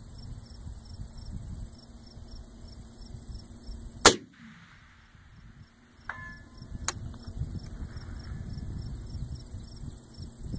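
A single shot from an AR-10 rifle about four seconds in, the loudest sound by far. About two seconds later comes a faint metallic ring of the bullet striking a steel target at 500 yards, then a sharp click. Crickets chirp steadily throughout.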